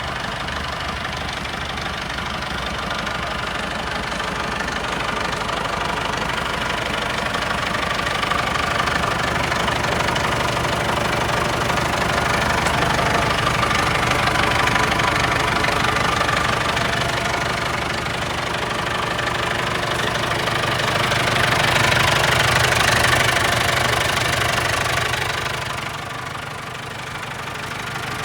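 JCB 3CX backhoe loader's Perkins four-cylinder diesel engine running with a steady diesel clatter. It grows louder in slow swells, loudest a little past the middle and again later on, then eases back near the end.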